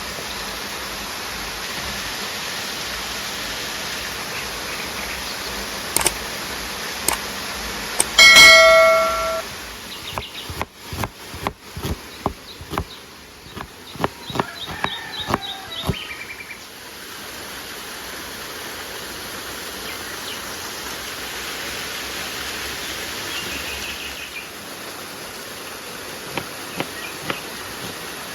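Steady rushing of river water, broken about eight seconds in by a loud ringing clang. A run of sharp knocks and clicks follows, then the water returns with a few bird chirps near the end.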